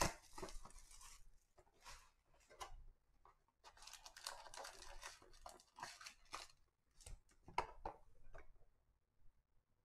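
Plastic shrink-wrap being torn off a cardboard trading-card box and the box opened, crinkling and tearing in several bursts that stop near the end.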